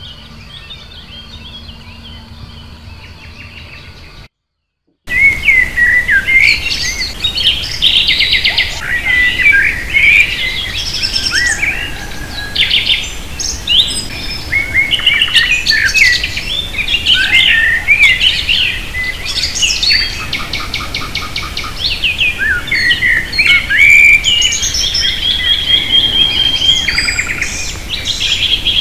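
Faint background hiss, then a brief cut to silence, then a loud, dense morning chorus of several songbirds: overlapping chirps, whistled phrases and fast trills.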